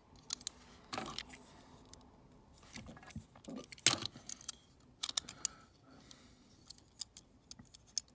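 Small die-cast metal toy trucks being handled on a tabletop: irregular sharp clicks and clinks as they are picked up, set down and knocked against one another, the loudest about four seconds in.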